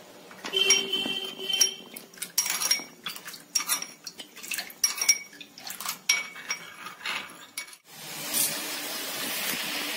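A metal spoon stirring a thin mixture in a small glass bowl, clinking and ringing against the glass many times in quick, uneven strokes. About eight seconds in it gives way to a steady sizzle of sauce bubbling in a nonstick frying pan.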